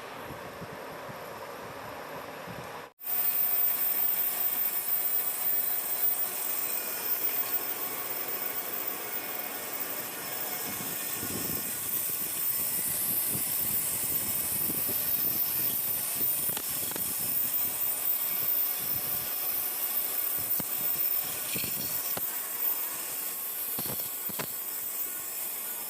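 Lathe running and cutting metal: a steady mechanical noise with a strong high hiss and scattered small clicks. It jumps louder after a brief break about three seconds in.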